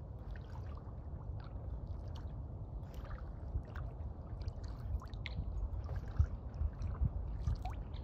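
Kayak paddle working calm water: soft dips, gurgles and drips, a little livelier in the second half, over a steady low rumble.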